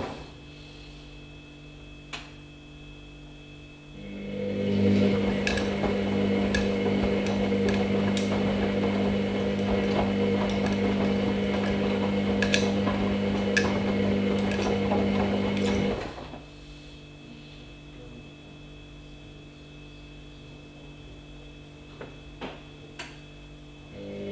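Hoover Nextra HNL662 washing machine mid-wash: about four seconds in the drum motor starts with a steady hum and a rushing swish of the turning load. It stops after about twelve seconds, leaving a faint hum and a few light clicks.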